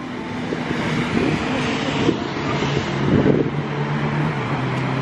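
Street traffic: cars driving by on the road beside the walkway, with a steady engine hum that builds about three and a half seconds in.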